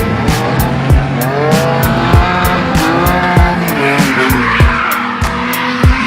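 Drift car engine revving up and down, with tyres squealing as it slides, the squeal strongest from about four seconds in. Hip-hop music with a heavy, deep kick-drum beat plays over it.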